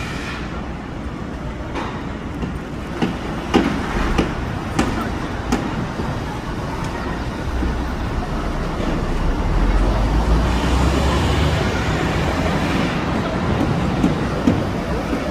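City street traffic and construction-site noise: a steady rumble of passing vehicles that swells near the middle, with scattered sharp knocks in the first half.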